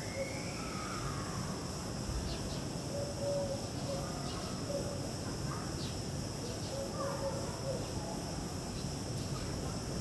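Outdoor nature ambience: a steady high-pitched insect drone, with short low bird calls recurring every couple of seconds and a few gliding chirps, over a constant low background rumble.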